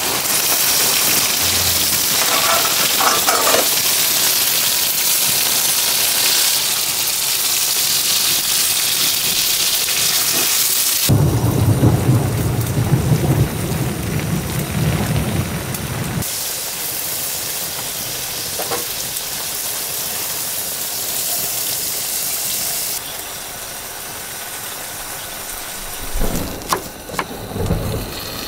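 Heavy rain hissing through a thunderstorm, with a deep rumble of thunder for several seconds partway through; the rain sound cuts in and out between shots. Near the end come a few sharp knife chops on a wooden cutting board.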